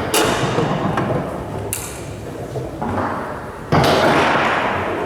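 Table football (foosball) play on a Tornado table: sharp knocks of the ball being struck by the rod figures and banging off the table, with clatter between. The three loudest knocks come at the start, about a second and a half in, and about three and a half seconds in, each ringing on in a large hall.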